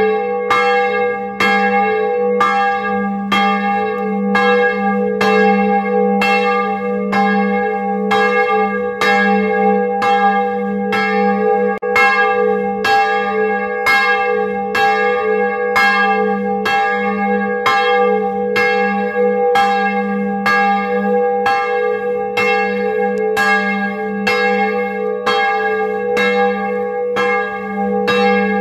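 Swinging church bell from 1658, tuned to G#3, rung by its clapper in full peal: even strokes, about three every two seconds, over a steady ringing hum heard close up in the belfry.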